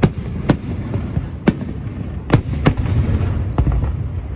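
Fireworks bursting: about six sharp bangs at irregular intervals over a continuous low rumble.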